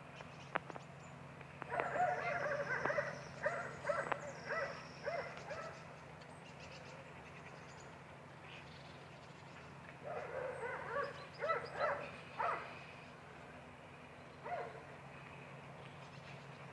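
Short animal calls repeated in quick succession, in two bouts about two seconds in and again about ten seconds in, with one more call near the end, over a steady low hum.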